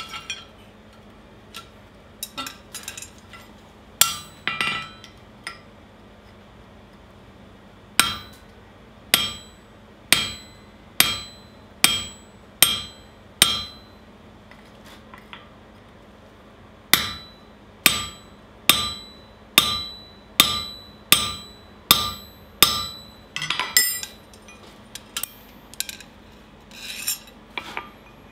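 Blacksmith's hammer striking steel on an anvil, with the anvil ringing after each blow. Two runs of steady blows about one a second, seven and then eight, with a short pause between and lighter, uneven taps near the start and end.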